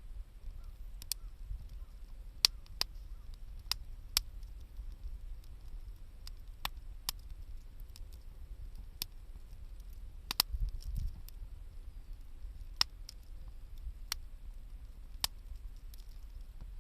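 Wood fire crackling, with sharp pops at irregular intervals of about a second over a low steady rumble.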